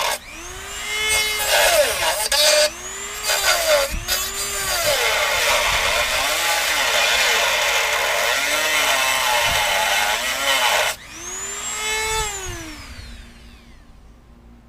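Dremel rotary tool with a cut-off wheel cutting, its motor pitch sagging and recovering again and again as it is pressed into the work. About eleven seconds in it is switched off and whines down to a stop.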